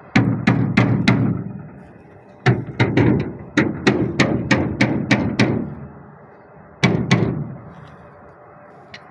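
Hammer blows on the transom of an aluminium Kazanka boat, the metal hull ringing after each strike: four quick blows, then a run of about ten, then two more near the end.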